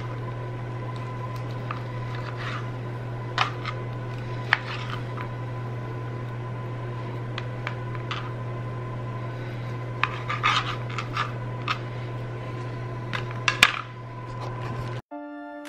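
Chef's knife slicing raw pork on a plastic cutting board: irregular taps and knocks of the blade against the board, over a steady low hum. Near the end comes a louder clatter as the knife is laid down on the board, and music starts just before the end.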